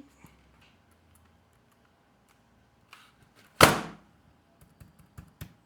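Light clicks of keys being pressed on a Logitech Pebble Keys 2 keyboard, with one loud thud about three and a half seconds in and a short run of clicks near the end.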